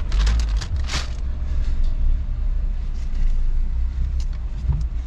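Car engine idling, a steady low rumble heard from inside the cabin, with crackling and rustling as a paper bag and a drink cup are handled, strongest in the first second.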